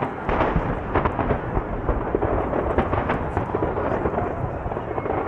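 Aerial fireworks shells bursting in a rapid, dense barrage, many booms overlapping into a continuous rumble with sharp cracks on top.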